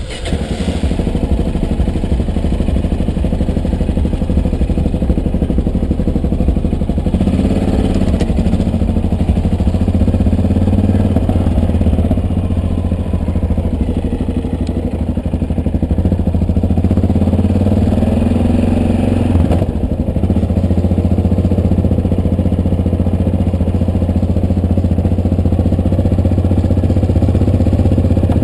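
Motorcycle engine running as the bike pulls away and rides at low speed, heard from a helmet-mounted camera. The engine note changes about 7 seconds in and dips briefly about 20 seconds in.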